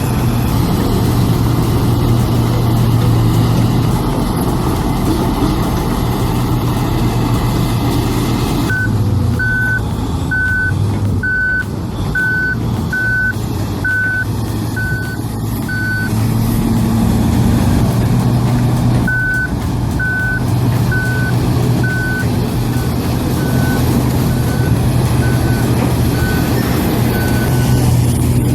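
Heavy bulldozer's diesel engine running steadily while its backup alarm beeps at about one and a half beeps a second, starting about a third of the way in, pausing briefly, then resuming more faintly to near the end.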